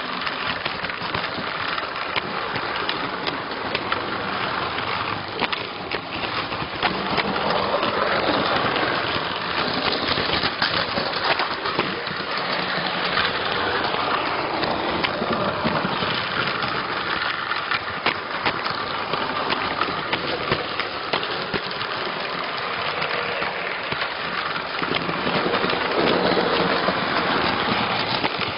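Electrotren model train with passenger coaches running along its track, heard from a camera riding on the train: a steady, dense rattle of small wheels on rails and vibration of the cars.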